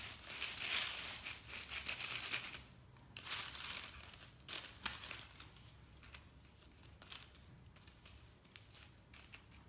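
Small plastic Magic Tracks race-track pieces rustling and clicking as they are handled and snapped together. The rustling and clicking is densest for the first two and a half seconds, comes in a few short bursts over the next two seconds, then thins out to occasional faint clicks.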